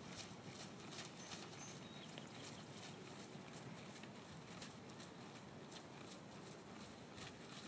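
Faint, irregular hoofbeats of an American Warmblood horse trotting on grass.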